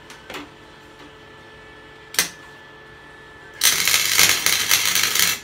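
A MIG welder tack-welding lugs onto a motorcycle frame. The arc strikes in two or three brief crackles, then runs for a continuous crackling weld of under two seconds near the end, which cuts off sharply.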